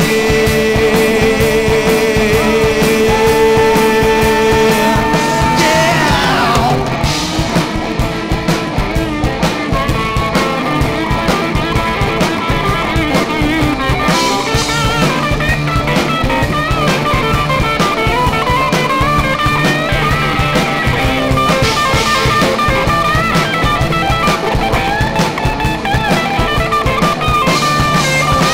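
A live rock band plays an instrumental passage with electric guitar and drum kit. It opens on a long held note that falls away in a downward glide about six seconds in, and the full band carries on with a steady drum beat.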